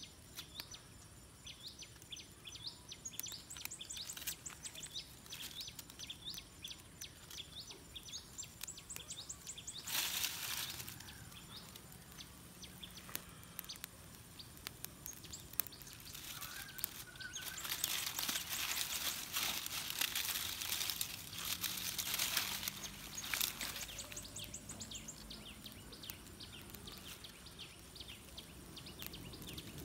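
Small birds chirping in quick runs of short high notes. There is a brief burst of rustling noise about ten seconds in, and a longer stretch of rustling in the second half.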